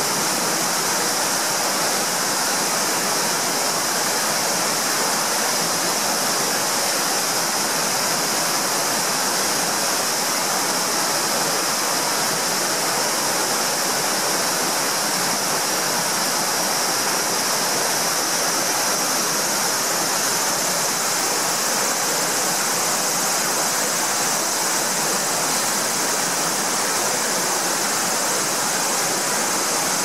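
Small waterfall: white water pouring steadily down a narrow rock cascade, an even, unbroken rush.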